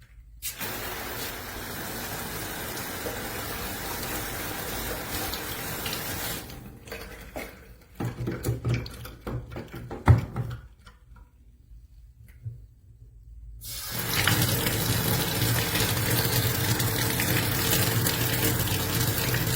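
Water running from a sink faucet through a hose sprayer head. It stops after about six seconds; several knocks follow as the fittings are handled, with one sharp knock about ten seconds in. The water then runs again, louder, from about fourteen seconds in.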